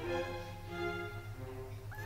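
Background music: slow instrumental music with held, string-like notes.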